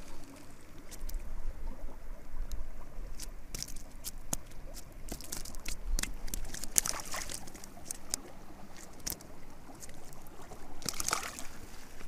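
Scattered light clicks and scuffs of hands handling a small caught fish and fishing tackle on a pebble shore, with louder crunches of movement on the gravel twice in the second half, and river water lapping at the edge.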